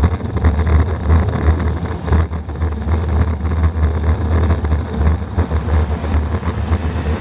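Wind buffeting a bicycle-mounted camera's microphone while riding, with road rumble from the tyres and scattered light clicks and knocks as the bike rolls over the pavement.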